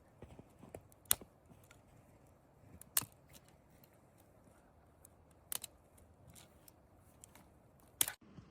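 A series of sharp snips or clicks, like hand work with a small tool: four loud ones a couple of seconds apart, with fainter ones between.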